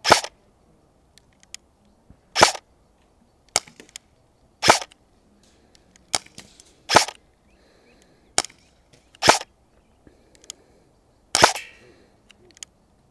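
Arcturus AK-12 electric airsoft rifle firing single shots, six in all about two seconds apart, each a short sharp crack. Fainter clicks fall between the shots.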